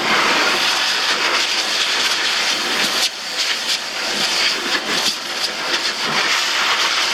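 AIIYME SH-168 dog grooming dryer blowing a steady rush of air over a small dog's coat, with a brief dip about three seconds in.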